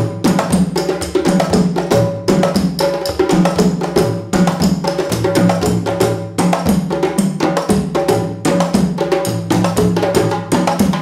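Instrumental music with a fast, busy percussion rhythm over sustained low bass notes.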